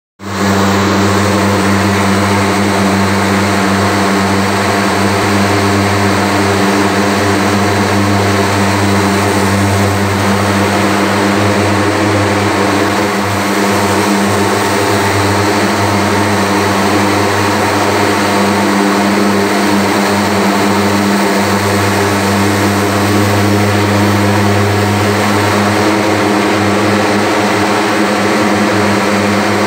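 Handheld thermal fogging machine, its pulse-jet engine running steadily with a loud, low buzzing drone as it blasts out insecticide fog.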